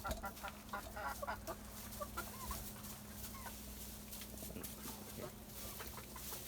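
Chickens clucking: a run of short calls in the first couple of seconds, then scattered clucks.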